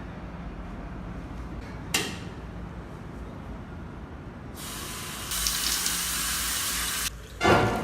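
A sharp click, then a loud hiss lasting about two and a half seconds that starts and cuts off suddenly, followed by a loud thump, over a low steady hum.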